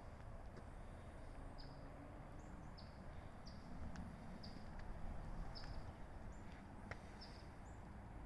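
A small bird chirping over and over, short high chirps about once a second, over a steady low background rumble.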